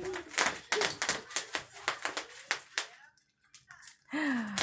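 Bubble wrap popping under children's feet: a rapid string of sharp pops, several a second, that stops about three seconds in. A child's short falling vocal sound follows near the end.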